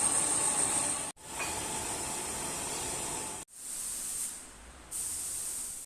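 Steady, hissing machine-shop noise from the production of excavator undercarriage parts, with a thin high whine over it. It cuts off abruptly about a second in and again about three and a half seconds in, as one clip gives way to the next, and drops lower for a while before jumping back near the end.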